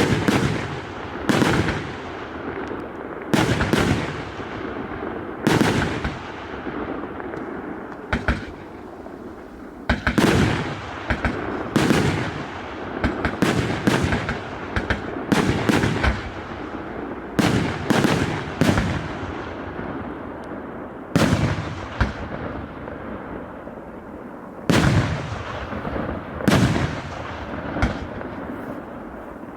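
A 188-shot firework cake firing: sharp launch thumps and bursting shells one after another at irregular intervals, sometimes in quick clusters, each bang trailing off briefly, over a steady crackle.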